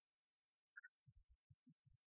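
Near silence: only a faint, patchy high hiss, with a few soft low thumps in the second half.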